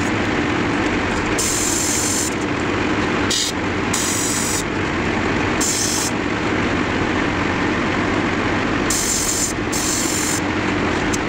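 Airbrush spraying paint in short hisses, six bursts of a second or less, over a steady low hum.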